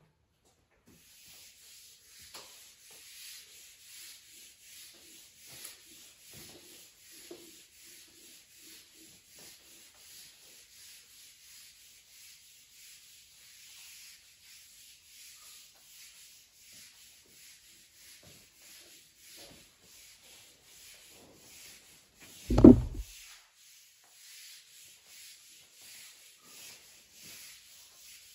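Whiteboard eraser wiping marker writing off a whiteboard in quick, repeated rubbing strokes. A single loud thump sounds about three-quarters of the way through.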